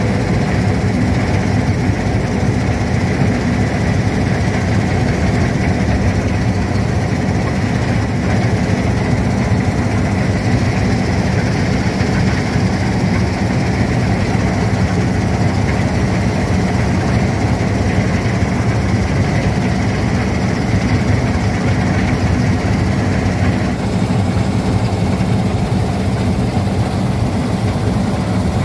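Combine harvester cutting triticale: its engine and threshing machinery run steadily, heard from the operator's seat, with a thin steady whine above the low drone.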